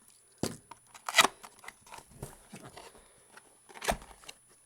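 Pocket knife cutting packing tape and cardboard on a box: three short, sharp strokes, the loudest about a second in and another near the end, with small clicks and rustles between.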